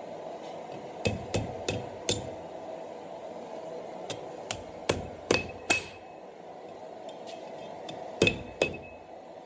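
Hand hammer striking hot steel on an anvil while forging an S-hook. There are eleven sharp blows in three quick runs of four, five and two, and several leave a short metallic ring from the anvil.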